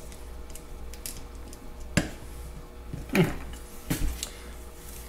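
A few sharp clicks and knocks of a screwdriver and a small cast carburetor body being handled on a workbench as the screws joining the bowl and top of a Zenith tractor carburetor are backed out, over a steady low hum.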